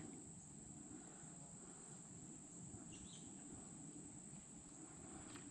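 Near silence: quiet outdoor ambience with a faint, steady high-pitched insect drone.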